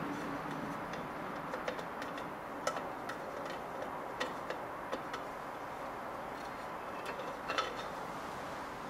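Scattered light clicks and taps as a NeoPixel LED ring is handled and pressed against a turned wooden disc to test its fit, over a steady background hiss.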